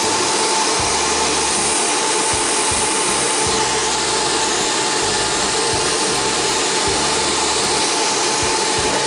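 Hair dryer blowing steadily: a constant rushing of air with a faint steady hum.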